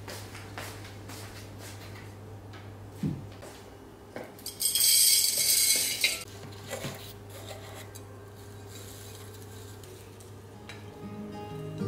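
Hands repotting a houseplant: potting soil scooped and pressed into a ceramic pot, with light knocks and clinks against the pots and a loud gritty rustle for about a second and a half in the middle. A steady low hum runs underneath, and soft music comes in near the end.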